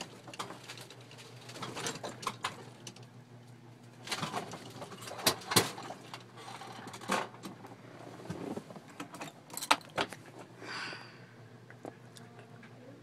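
1985 Club Car electric golf cart rolling slowly, its body and fittings giving off scattered rattles, clicks and a few sharp knocks, loudest about five and ten seconds in, over a faint steady low hum. The electric drive itself is nearly silent.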